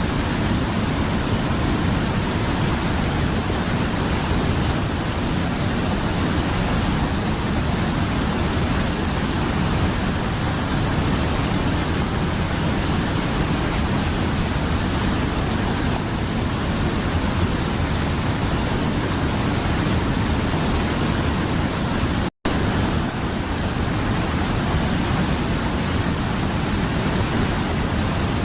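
A mountain river flowing: a steady rush of water, with the sound cutting out for a split second about three-quarters of the way through.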